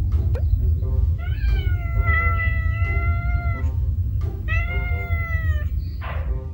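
A domestic cat meowing: two long, drawn-out meows, the first rising at its start and then held for about two seconds, the second coming a second later and a little shorter.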